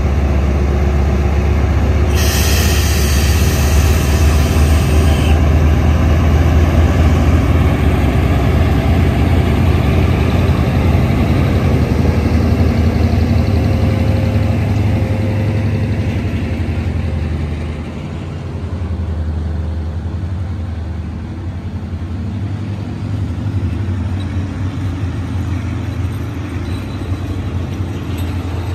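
A State Railway of Thailand Hitachi diesel-electric locomotive pulling a passenger train away from a station, its engine giving a loud, steady low drone as it passes, with a hiss of air about two seconds in that lasts around three seconds. From about eighteen seconds in the engine fades and the coaches roll by more quietly.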